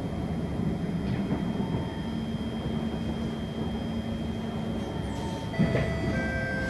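Kawasaki C151 metro train running along the track, heard from inside the car: a steady rumble of wheels and motors with a faint high steady tone and a lower hum through the middle. A little over five seconds in comes a sudden knock, followed by several thin high tones.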